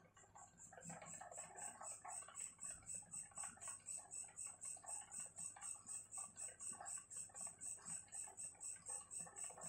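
High-pitched insect chirping, pulsing evenly about four times a second, begins just after the start. Beneath it, the faint scratch of a pen writing on notebook paper.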